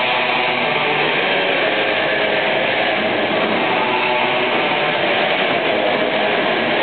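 Live heavy metal band playing at full volume: distorted electric guitars and drums blend into a dense, even wall of sound with no clear single notes.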